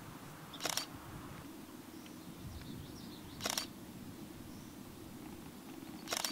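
Three short camera shutter clicks, roughly three seconds apart, over a steady low outdoor background with a few faint, high bird chirps.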